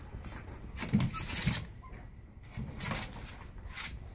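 Pug puppies stirring in a blankets-lined plastic kiddie pool, with a few short bursts of scrabbling and rustling on the plastic and cloth.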